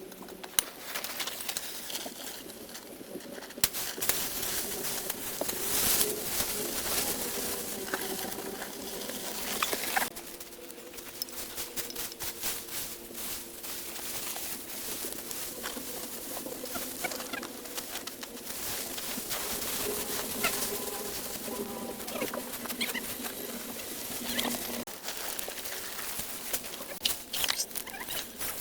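Doves cooing in low drawn-out calls, over scattered knocks and scrapes.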